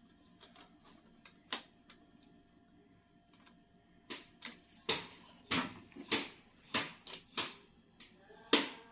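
Sharp clicks and knocks from hands handling and fitting parts of a refrigerator thermostat during its replacement. There is a single click early on, then a series of them from about four seconds in, roughly one every half second.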